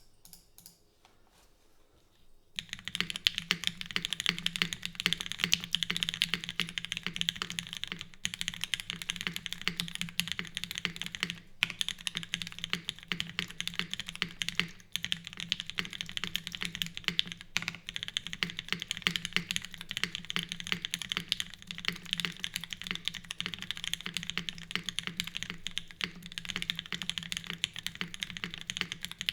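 Fast, continuous typing on a custom Ecliptica mechanical keyboard with lubed, filmed Gateron Mink linear switches in a full aluminium plate with no foam, under GMK doubleshot ABS keycaps. The typing starts about two and a half seconds in and runs with only a few brief pauses.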